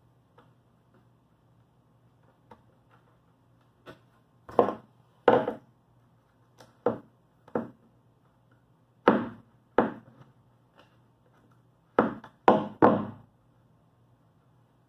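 Sharp wooden knocks on the plywood boat panels, mostly in pairs about two-thirds of a second apart, four groups in all, the last one of three knocks.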